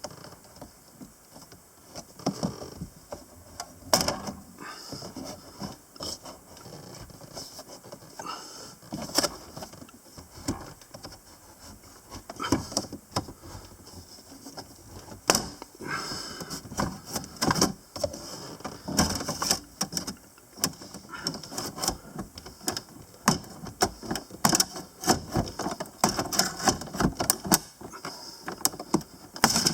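Long metal pry bar working a plastic dashboard defroster grille panel loose on a C6 Corvette: irregular clicks, taps and scrapes of metal against hard plastic, coming more often in the second half.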